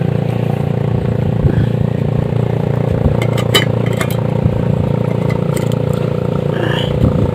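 A small engine running at a steady drone, with scattered clicks and scrapes of handwork over it.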